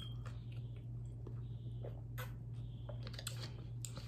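Mouth sounds of someone chewing and eating fried food, with scattered short, sharp clicks, over a steady low hum.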